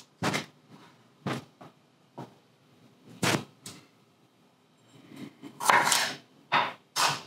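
Chef's knife cutting garlic cloves on a wooden cutting board: a few separate knocks of the blade on the wood, then a quicker run of cuts with one longer stroke about five seconds in.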